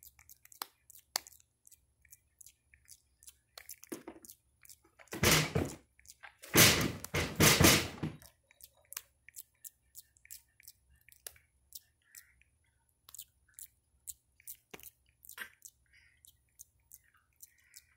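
Macaques grooming close to the microphone: a steady scatter of small wet clicks and smacks of lips and teeth. About five and again about seven seconds in come two loud rustling bursts.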